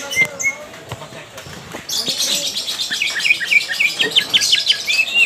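Cucak ijo (greater green leafbird) singing. After about two seconds of scattered faint sounds, a dense run of chattering notes starts and turns into a fast series of sharp repeated notes, about five a second: the rapid 'ngetrok' song it is being trained to deliver.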